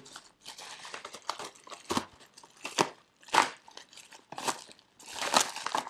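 Plastic bubble wrap crinkling and rustling as it is pulled and torn open by hand, with several sharper crackles at irregular moments, the loudest near the end.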